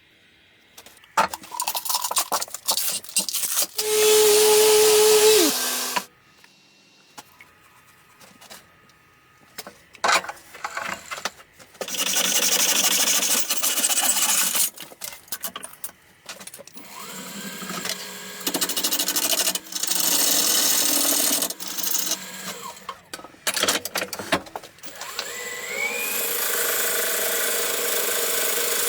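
Power tools working wood in a series of short bursts of several seconds each, with brief quieter gaps between them.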